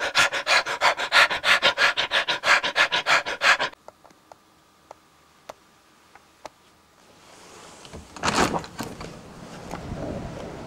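Rapid, heavy panting of someone out of breath, about five breaths a second, that cuts off suddenly about three and a half seconds in. A few faint clicks follow, then a rising rush of noise with a loud swell near the end.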